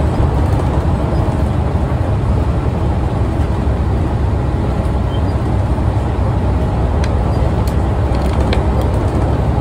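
Steady low rumble of road and engine noise heard from inside a moving vehicle.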